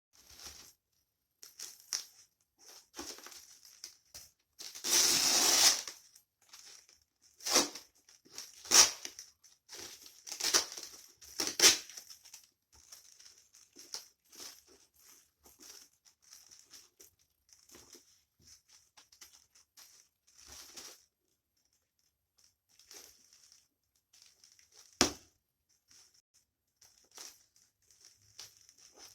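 Shipping box and its packing being torn open: a long rip about five seconds in, then a run of short sharp rips, crinkling and rustling, and one more sharp rip near the end.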